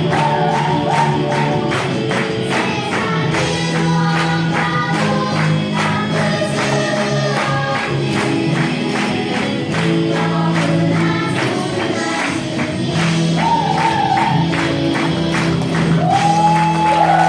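Live Christian gospel song: a group of voices singing with band accompaniment over a steady, evenly spaced percussion beat, with long held notes near the end.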